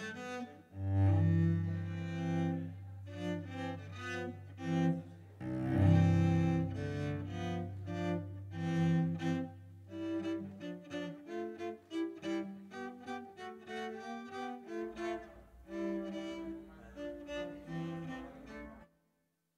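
Solo cello played with the bow: long held low notes in the first half, then a run of shorter notes, stopping about a second before the end.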